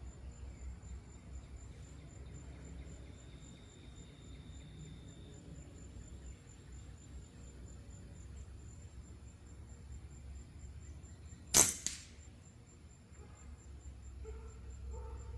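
A single air rifle shot firing a pellet, about three-quarters of the way in: one sharp crack with a short tail, the sighting-in shot. A faint, steady, high insect trill sounds underneath.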